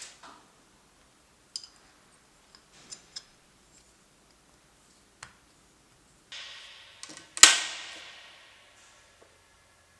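A few scattered light clicks, a short hiss, then one sharp, loud strike about seven seconds in that rings and fades over about a second and a half.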